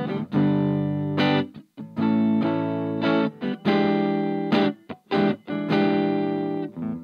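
Electric guitar played through a 2-watt Little Rebel amp kit driving a Jensen CR8 speaker. Chords are struck and held about a second each, then choked off short, with a few quick stabs just past the middle.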